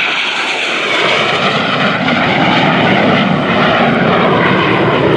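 MiG-17 jet fighter's turbojet engine in a fast low flyby: loud jet noise that swells over the first second, then holds steady and loud.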